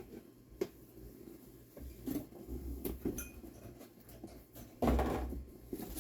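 Unboxing handling: a hard plastic toy box and its packed parts being moved and opened, with scattered light clicks and knocks and a louder rustle about five seconds in.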